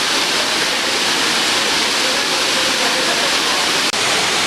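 Loud, steady rush of a waterfall pouring into its plunge pool, with a momentary break about four seconds in.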